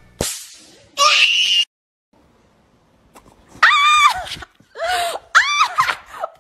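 Two short hissing bursts near the start, then a pause, then a run of loud, high-pitched screams, several in a row with the pitch bending up and down.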